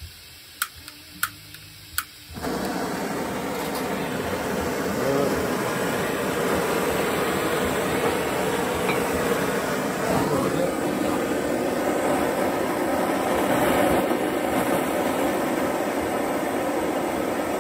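Three sharp clicks of a lighter or igniter, then a hose-fed hand-held propane torch lights about two seconds in and burns with a steady rushing hiss.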